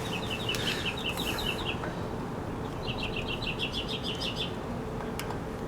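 A songbird singing two quick trills of short, evenly repeated high chirps, with a pause of about a second between them.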